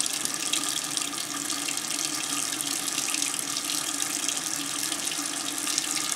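Bathroom faucet running steadily into a sink, the stream splashing over hands being rubbed together beneath it.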